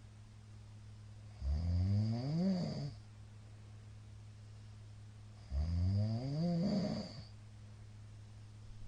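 A middle-aged man snoring loudly in his sleep: two long snores about four seconds apart, each rising in pitch as it goes. A steady low hum runs underneath.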